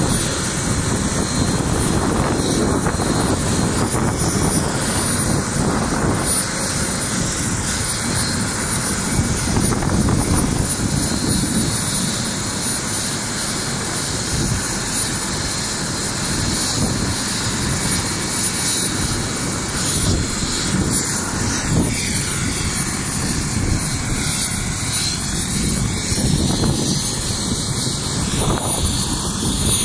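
Helicopter running on the ground with its rotors turning: a steady, loud rotor and turbine noise with a steady high whine above it.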